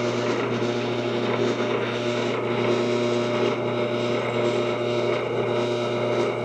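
Drill press motor running with a steady hum while a bit drills through a hard steel mounting bracket.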